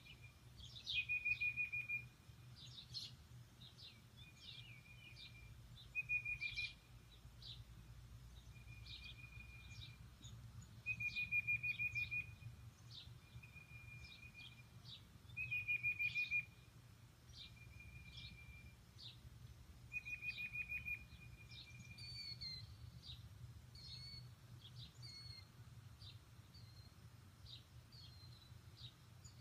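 Birds singing: one bird repeats a level, even trill about a second long every four to five seconds, with softer trills in between. Quick high chirps from other birds fill the gaps, and short whistled notes come in during the last third over a faint low rumble.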